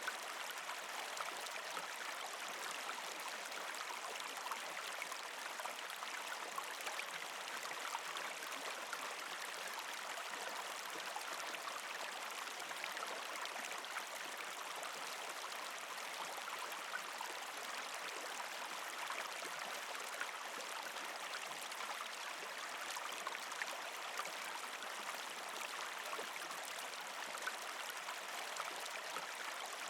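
Creek water flowing and trickling over rocks past ice, a steady, even rush with fine splashy gurgles throughout.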